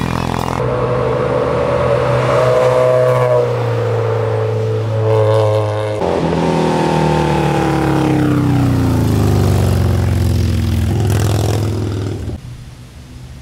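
Motorcycles passing at speed one after another. The engine note drops in pitch as each goes by, twice, then falls away sharply shortly before the end.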